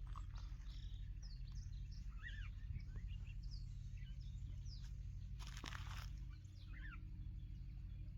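Small birds chirping and twittering outdoors, many short calls rising and falling in pitch, over a steady low hum, with a brief rustle about halfway through.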